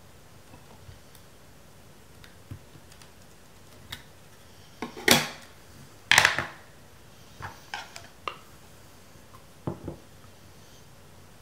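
Scattered small clicks and clinks of a large-format lens, its metal retaining ring and its lens board being handled and fitted together, with two louder clattering knocks about five and six seconds in.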